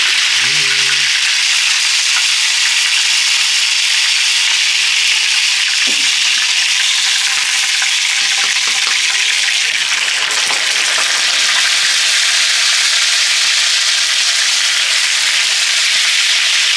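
Whole fish frying in hot oil in a pan, a loud, steady sizzle that holds without a break.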